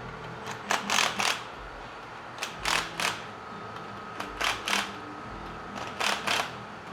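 Short bursts of hiss in four groups of two or three, about a second and a half apart, over a steady faint shop hum.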